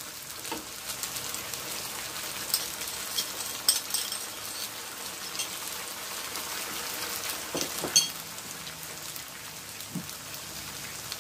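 Chili garlic sauce simmering in a frying pan, a steady sizzle with scattered sharp pops.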